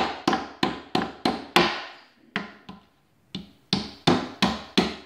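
Steel hammer striking plastic dowels into holes in a drawer panel, a steady run of sharp taps about three a second. It pauses just past two seconds for two lighter taps, then the strikes resume.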